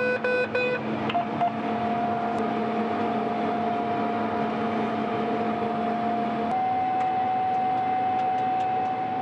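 Combine harvester running steadily at work, a constant droning hum. A short run of electronic beeps sounds right at the start, and about six and a half seconds in the drone's pitch steps up slightly.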